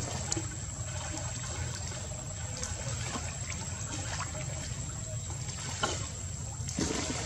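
Water lapping and trickling around a monkey swimming through a pool with a baby clinging to it, with two small splashes near the end, over a steady low rumble.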